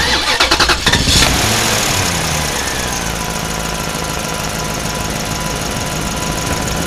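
Truck engine starting: a fast rattle of cranking for about a second, then the engine catches and runs steadily, its pitch dropping as it settles.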